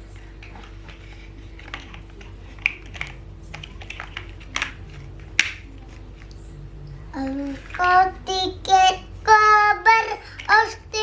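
Scattered light clicks and taps for the first seven seconds, then a young child singing in held, wavering notes from about seven seconds in.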